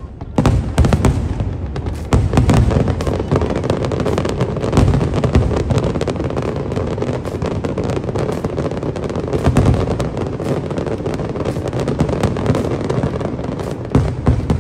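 Fireworks display: aerial shells bursting in a rapid, continuous volley of bangs over dense crackling, which starts with a jump in loudness about half a second in.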